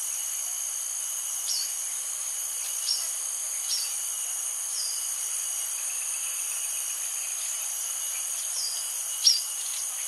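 Steady high-pitched ringing of insects from a mangrove forest, with a few short bird chirps scattered through it, the loudest about nine seconds in.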